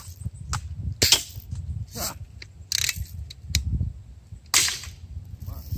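Air-powered BB guns firing at a gutted plastic boombox: a series of sharp cracks roughly a second apart, some with a short hiss of escaping air, the last and loudest near the end. A low rumble runs underneath.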